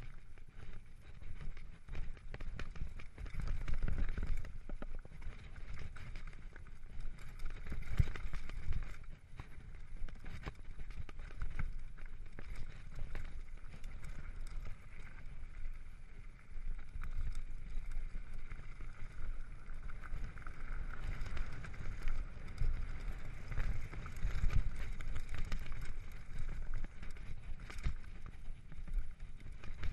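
Mountain bike riding fast down a rocky dirt trail: a constant low rumble of wind and tyres, with a steady stream of rattles and knocks as the bike bounces over stones and roots.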